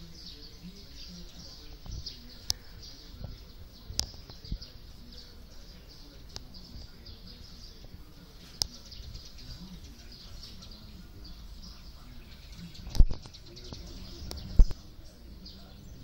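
Birds chirping steadily in a high-pitched chatter around a feeding flock, with a few sharp clicks and two louder thumps near the end.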